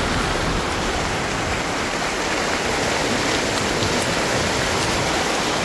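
Floodwater steadily rushing and splashing up along the side of a vehicle as it drives through the flooded road.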